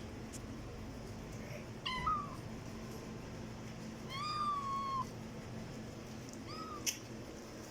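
A cat meowing three times: a short meow about two seconds in, a longer one of about a second, and a short one near the end, each rising and then falling in pitch. A sharp click comes just after the last meow.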